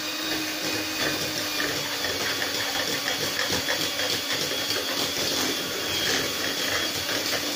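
Electric hand mixer running steadily at speed, its beaters whirring through butter in a metal bowl as it is beaten to a smooth paste.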